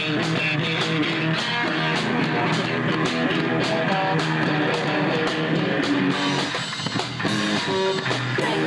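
Live rock band playing: guitar over a steady drum beat, with a brief dip in loudness about seven seconds in.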